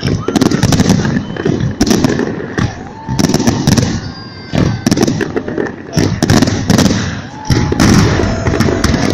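Fireworks salute going off: rapid, repeated loud bangs and crackling bursts, several a second, with a brief lull about four seconds in.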